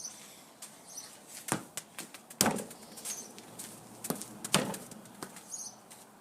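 A few sharp thuds of a football being kicked and bouncing, the two loudest about two seconds apart near the middle.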